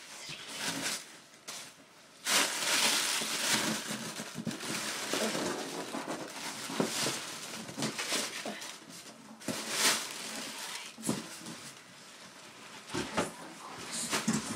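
Cardboard box and its packing rustling and crinkling as hands rummage through the contents, with a longer, louder rustle about two seconds in and sharp crackles and taps throughout.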